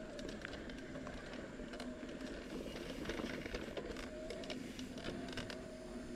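Bicycle riding along a dirt trail: a steady whine with a rapid scatter of clicks and rattles throughout.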